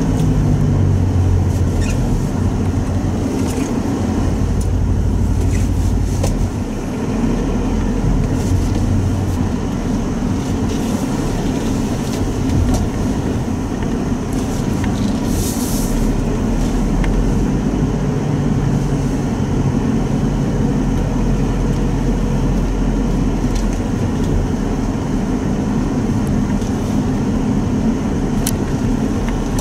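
Mitsubishi Pajero Sport 2.5 diesel engine running steadily while driving, heard from inside the cabin together with road noise. The low engine note shifts pitch a few times as speed changes.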